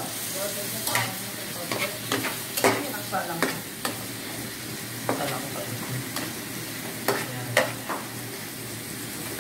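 Shrimp sizzling as they sauté in a pan, with a utensil scraping and clicking against the pan about a dozen times at irregular moments as they are stirred.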